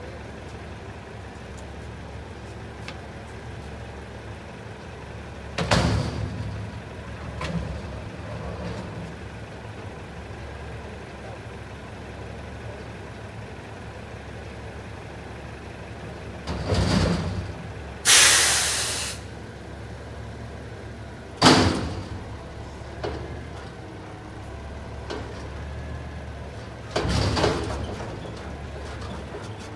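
Mack front-loader garbage truck idling, with a series of loud bangs and clatters as bulk items go into a blue curbside container. About 18 seconds in there is a sharp hiss of released air, like an air brake. Near the end another bang as the truck's front forks pick up the container.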